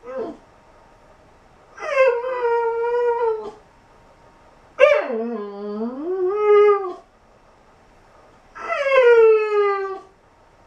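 Dog howling: a short yelp at the start, then three long drawn-out howls with quiet gaps between them, each sliding down in pitch at its end; the middle one dips low and climbs back up.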